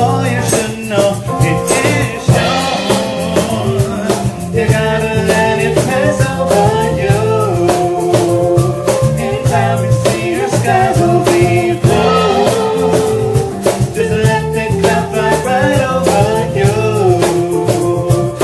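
Live band performing a song: a man and a woman singing, accompanied by electric guitar, bass guitar and percussion keeping a steady beat.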